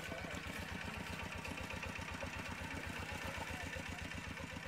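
A small engine running steadily with an even, rapid chugging.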